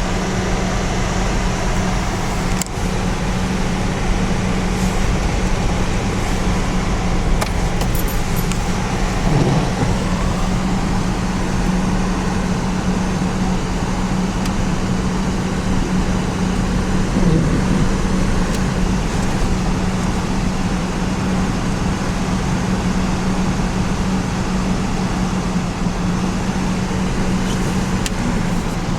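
A motor running steadily, with a constant low hum under a loud, even rushing noise.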